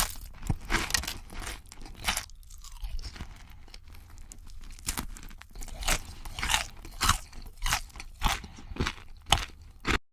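Someone chewing crispy KFC fried chicken: a run of sharp, irregular crunches, coming thicker in the second half.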